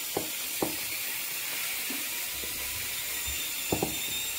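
Wooden rolling pin rolling out flatbread dough on a wooden board, with a few light knocks of the pin against the board near the start and once near the end, over a steady hiss.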